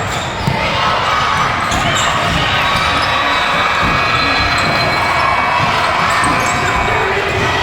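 A basketball bouncing on a gym floor during a youth game, amid the steady noise of the gym: irregular low thumps over a continuous din.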